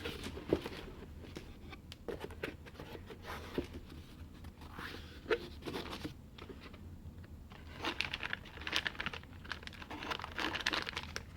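Packaging being handled and unpacked: plastic and paper crinkling and rustling, with scattered sharp clicks and taps of parts being picked up and set down.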